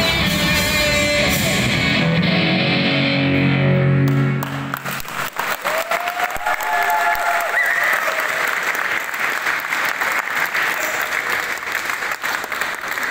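Live band with electric guitars ends a song on a held final chord about four seconds in, then an audience applauds steadily.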